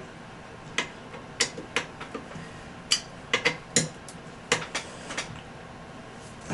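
About a dozen sharp, irregular metal clicks and clinks from a hand tool and small bolts on the handlebar clamp being worked and handled.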